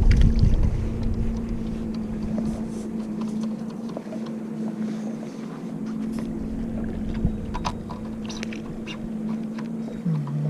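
A boat motor running with a steady hum, with faint clicks and knocks over it and a gust of wind on the microphone at the start.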